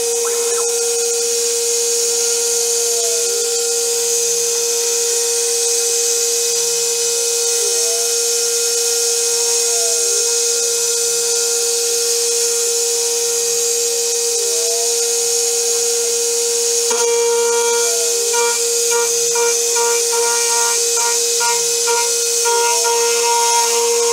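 Spindle of a home-built CNC mill whining at a steady high pitch as a 4 mm end mill cuts a metal rim part, with a steady hiss over it. The cutting sound wavers in an even cycle every couple of seconds as the cutter works around the contour, and a choppier, chattering tone joins about two-thirds of the way in.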